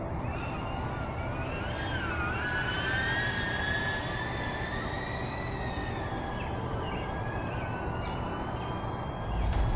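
DJI Avata FPV drone's propellers whining, the pitch gliding up about two seconds in and then easing and wavering as the throttle changes. Near the end a louder low rumble comes in.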